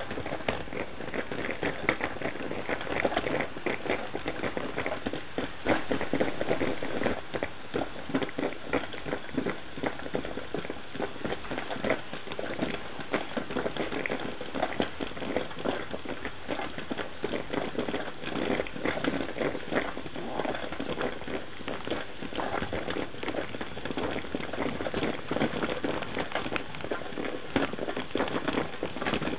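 Stovetop coffee percolator perking: a steady crackling, bubbling gurgle as the water boils up through the pot.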